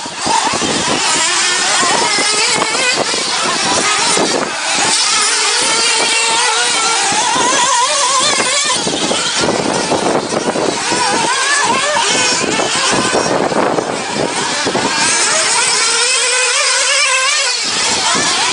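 Remote-control off-road car's electric motor whining loudly, its pitch rising and falling constantly with the throttle, over a dense rushing noise.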